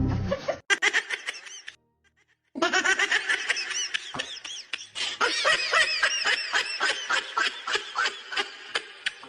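Music, broken off by a brief silence about two seconds in. After the break comes a long run of rapid, high-pitched giggling laughter.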